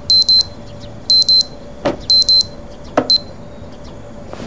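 Digital alarm clock beeping: high-pitched double beeps repeating about once a second, stopping shortly after three seconds in.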